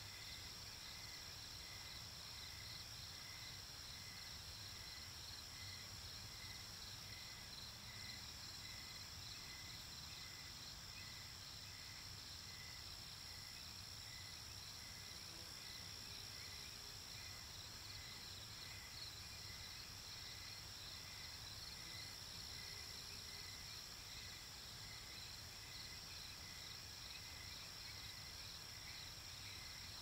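Faint late-summer insect chorus: a steady high buzz, with crickets chirping in a regular pulse of about two chirps a second.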